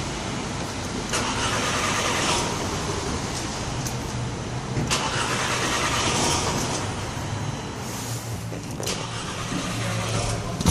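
A 2012 Volkswagen Eos's engine being cranked by its starter, long spells of turning over that swell and fade, a sign of the no-start it has when hot.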